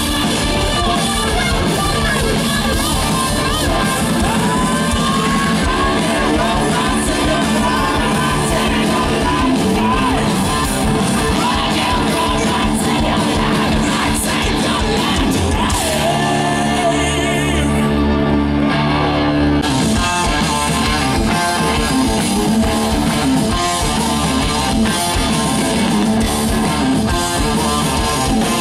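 Live hard rock band playing loud through the PA: distorted electric guitars, bass and drums, with a male singer. About two-thirds of the way through, the drums drop out for a few seconds under a held chord, then the full band crashes back in.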